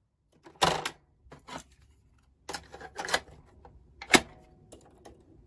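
Plastic clicks and clunks from a Thorn Ferguson 3T11 radio cassette recorder as its cassette door is worked and a tape loaded, ending in a sharp snap about four seconds in as the door is pushed shut.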